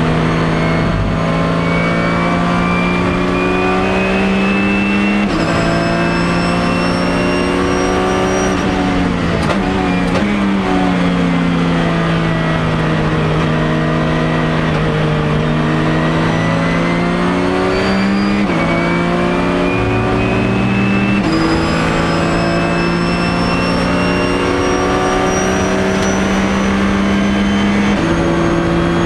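A 2008 Porsche 911 GT3 Cup racing car's 3.6-litre flat-six, heard from inside the cockpit at full throttle. It climbs in pitch through the gears, with sudden upshifts at about 5, 18 and 21 seconds in. Near 10 seconds in it brakes hard with a quick run of downshifts, and a high whine rises and falls with the engine.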